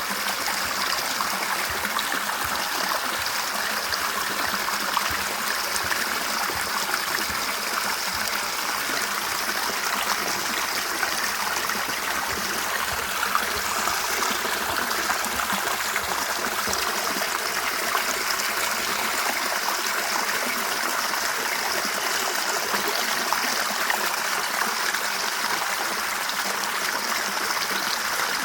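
River water flowing steadily over stones, a continuous babbling and trickling rush.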